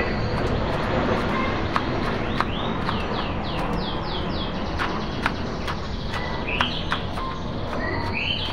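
Kitchen knife slicing shallots on a plastic cutting board: sharp, irregular taps of the blade on the board. A bird chirps in the background, a quick run of about six falling notes a few seconds in and a few more calls near the end, over steady background noise.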